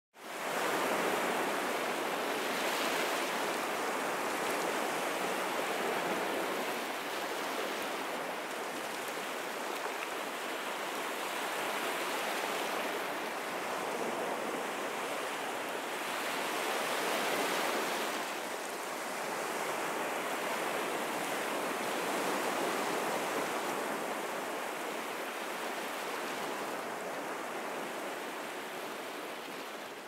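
Ocean surf: a steady wash of waves breaking and running up a beach, swelling and easing every few seconds.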